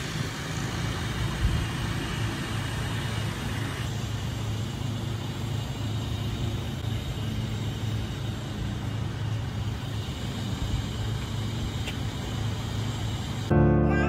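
Engine of a truck-mounted forklift running steadily as it drives across the lawn carrying a pallet of sod, a low even hum. Music starts just before the end.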